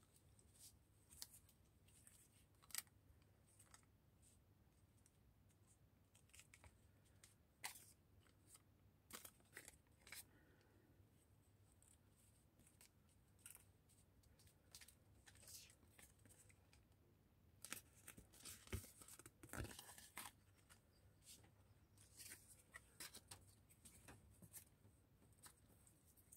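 Faint, scattered rustles and light taps of paper tags and cards being handled and laid down, with a short flurry of handling about two-thirds of the way through.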